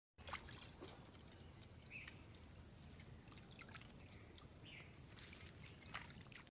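Faint dripping and small splashes in shallow water, with scattered light clicks. A thin, steady high tone sits behind them.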